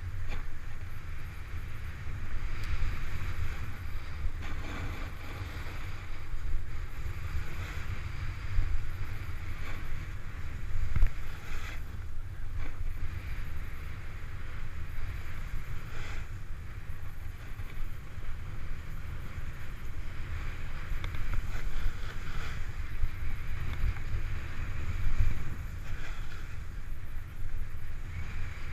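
Wind rumbling and buffeting on a GoPro Hero 3 action camera's microphone while a snowboard hisses and scrapes over the snow at speed, with a few sharper edge scrapes along the way.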